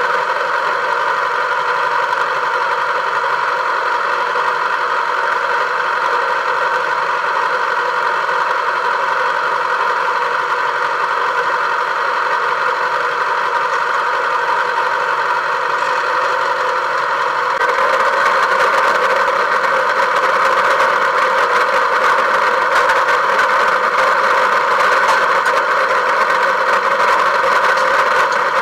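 A vehicle engine running steadily, a little louder from about eighteen seconds in.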